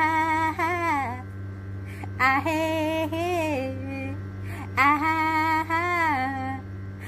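Music: a woman's voice singing an Amharic song in three long, ornamented phrases that bend and waver in pitch, over a steady low accompaniment.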